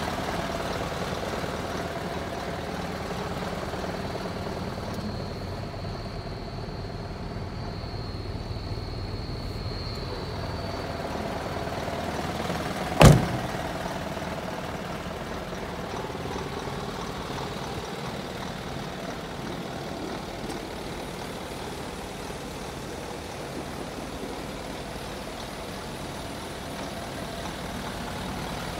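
Isuzu Forward truck's diesel engine idling steadily. About halfway through there is a single sharp knock.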